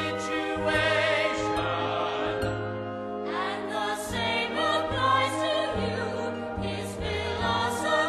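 Music: a choir singing wordless, sustained notes over an orchestral accompaniment with a regular bass line.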